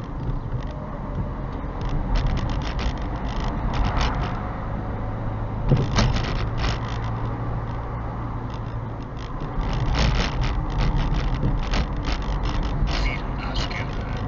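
Car driving along a town street, heard from inside the cabin through a dashcam's microphone: a steady low engine and road hum with frequent small clicks and rattles, and a sharper knock about six seconds in.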